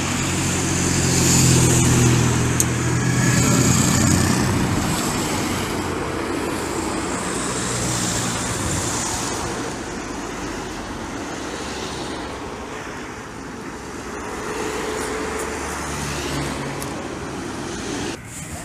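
A line of race team cars drives past close by, one after another, each with its engine running and tyres on the road; the loudest pass comes about two to four seconds in, and the sound drops off abruptly just before the end.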